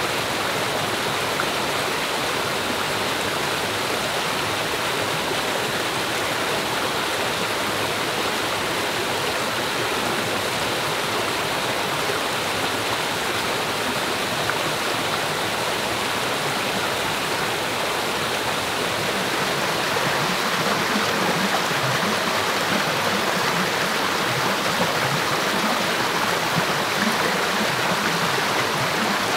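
Rocky forest stream rushing and splashing over boulders in small cascades. It is steady throughout and gets a little louder after about twenty seconds.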